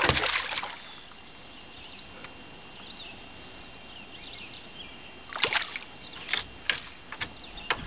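Water splashing and sloshing at the side of a canoe as a big walleye is brought in, followed a few seconds later by several sharp knocks and splashes.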